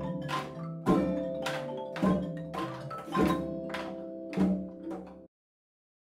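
Background music of struck, ringing notes, about two a second, that cuts off suddenly a little after five seconds in, leaving silence.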